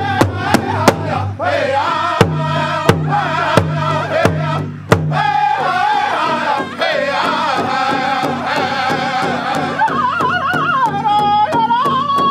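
Powwow drum group singing in unison around a large hide drum beaten by several drummers together. The drum goes at about three beats a second at first, then slows to heavier, spaced strikes, then continues with lighter beats under the singing. Near the end a high, wavering vocal line rises above the group.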